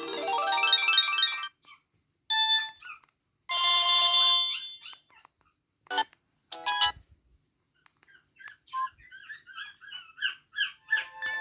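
Samsung E1150 mobile phone playing a series of its preset ringtones and alert tones one after another. First comes a falling cascade of electronic chime notes, then brief tone blips and a short bright burst. Near the end there is a quick run of short squeaky chirps.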